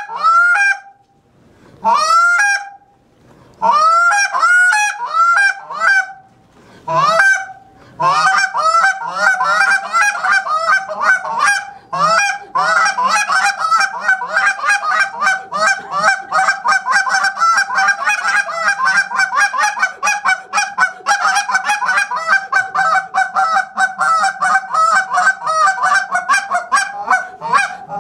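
Handheld goose call blown by a contest caller imitating geese. It starts with a few separate honks, each breaking sharply from a high note to a low one, then from about eight seconds in goes into a rapid, unbroken run of clucks and double clucks.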